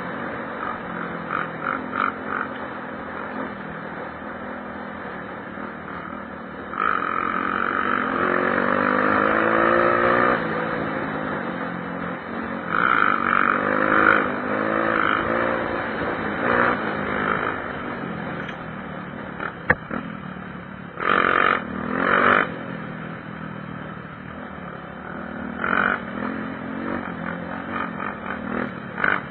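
Honda XR 250 Tornado single-cylinder motorcycle engine rumbling at idle and being revved. The revs rise and fall in long pulls about a quarter of the way in and again near the middle, with short sharp blips later on.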